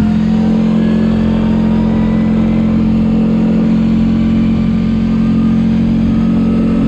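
CFMOTO CForce 450L ATV's single-cylinder engine running at steady high revs under way, its pitch holding level.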